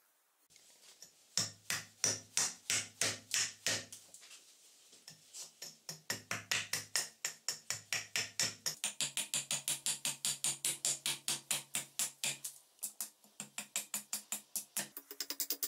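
Background electronic music with a steady, fast beat and held bass notes that change every couple of seconds, coming in about a second in.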